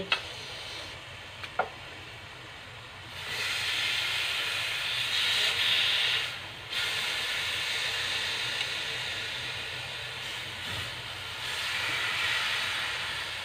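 Marinated pork slices sizzling in hot oil in a nonstick frying pan, the sizzle growing louder about three seconds in as more pieces are laid into the pan with tongs. A couple of light clicks in the first two seconds.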